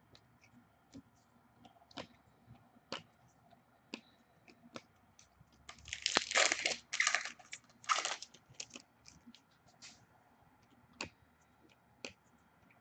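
A hockey card pack's wrapper being torn open and crinkled, loudest about six to eight seconds in, with scattered light clicks and taps of cards being handled before and after.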